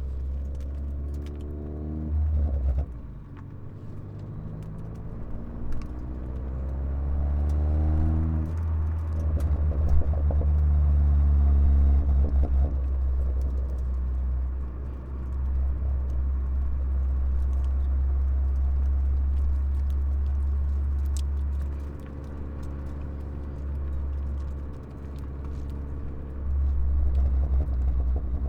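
Ford Focus ST turbocharged four-cylinder with a muffler delete, stock cat and resonator kept, revved up and let back down several times with a deep, bassy exhaust note. Scattered pops and crackles come on throttle lift-off, from a pops-and-crackles engine tune.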